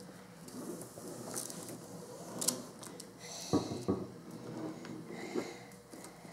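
Pen scratching in strokes across paper laid on a plastic drawing board, with a few light knocks about halfway through.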